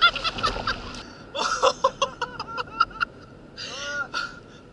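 Seabirds calling: clusters of short, arching yelping calls, a run of them from about a second in and another near the end, over the splash and wash of water against a kayak.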